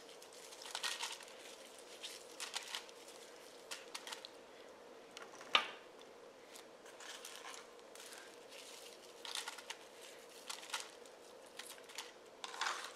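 Food-preparation handling sounds: intermittent crinkling and rustling of plastic packaging with scattered light clicks, and one sharper click or knock about halfway through.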